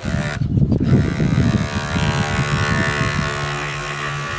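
Homemade drill, a 12-volt DC motor on a PVC-pipe stand spinning a sharpened bicycle-spoke bit, running free at speed with a loud electric buzz. It is uneven for the first second and a half, then settles into a steady hum.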